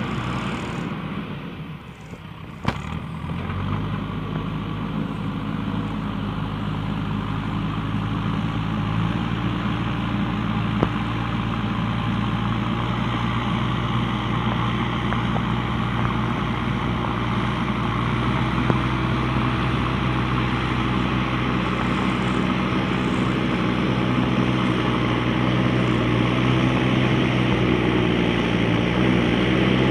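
Small motor of a toy wheel loader running steadily with an engine-like drone, a low hum under a buzzy whirr. It drops away briefly about two seconds in, a click follows, and it picks up again and slowly grows louder.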